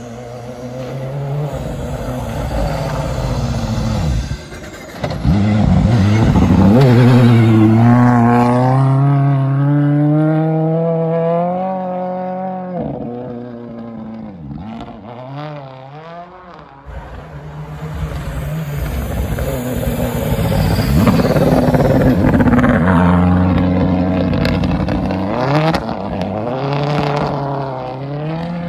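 Ford Fiesta WRC rally car's 1.6-litre turbocharged four-cylinder engine at full throttle, revving up through the gears as it passes. It swells loud twice, with sharp breaks in pitch at the gear changes.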